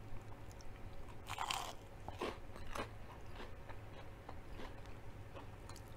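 Bite into a breaded zucchini stick: a loud crunch about a second in, then more crunches and smaller crackles as it is chewed.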